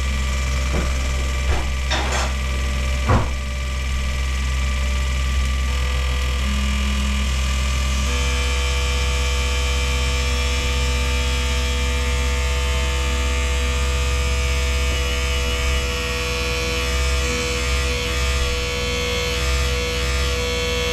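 Asnu fuel injector test machine running with a steady low hum as its pump builds fuel pressure in the test rail, to check the Land Rover V8 injectors for leaks. A few sharp clicks come in the first three seconds, and a steadier whine joins about eight seconds in.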